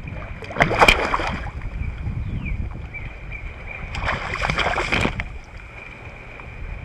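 Water splashing twice at the side of a kayak, about a second in and again about four seconds in, as a 20-inch speckled trout is revived and released. A steady wind rumble on the microphone runs underneath.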